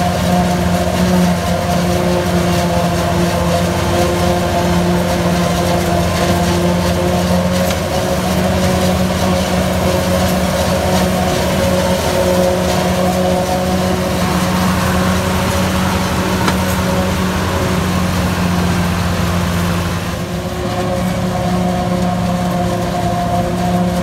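New Holland FX48 forage harvester and a Ford 4000 tractor running together at work: the harvester chopping maize and blowing silage into the trolley, giving a loud, steady machinery and engine hum that dips briefly about twenty seconds in.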